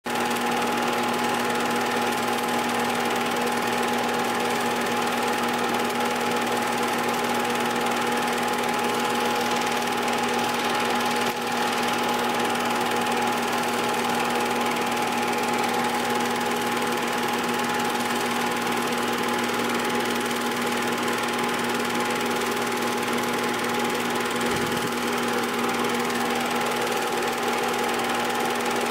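8mm film projector running: a steady mechanical whir with a constant hum that does not change.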